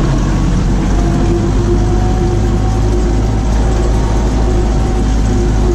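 Farm tractor engine running steadily under load, driving a stalk shredder through sunflower stalks, with a steady whine above the engine's drone.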